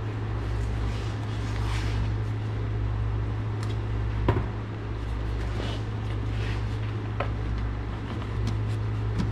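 Plastic wheel-well splash shield being handled and pushed into place: scraping rustles and a few sharp clicks, the clearest about four seconds in, over a steady low hum.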